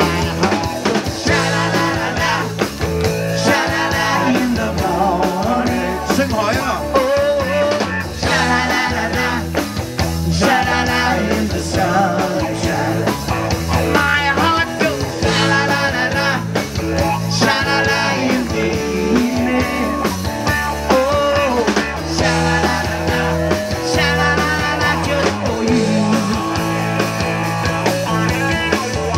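Live rock band playing a song: electric guitar, bass guitar and drum kit, with a wavering lead melody carried over the top.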